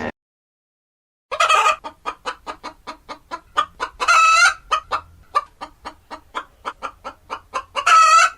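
Domestic hen cackling, starting about a second in: a quick run of short clucks, about three a second, broken by three longer, louder drawn-out calls.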